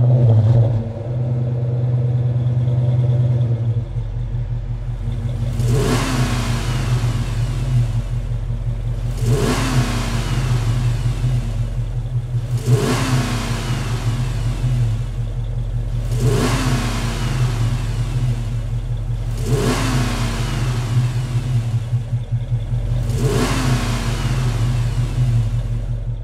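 Dodge Challenger's V8 idling steadily, with six quick throttle blips about every three and a half seconds, each rev dropping straight back to idle.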